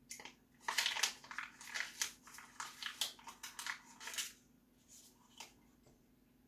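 A printed paper picture crinkling and crunching as it is bitten and stuffed into the mouth, a dense run of crackles lasting about three and a half seconds, then a few faint sounds as it is chewed.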